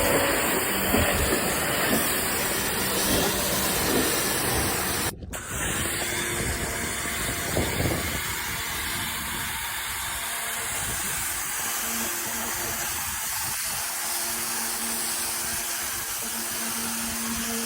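Pressure washer spraying water, a steady hiss with a momentary break about five seconds in.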